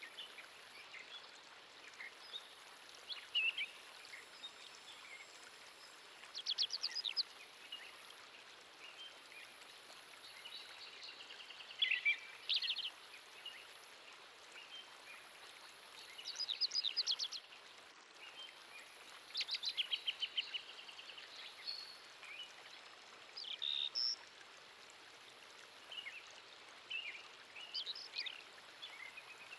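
Woodland birdsong over a steady background hiss: several birds chirping, with a fast trill of rapid repeated notes every few seconds.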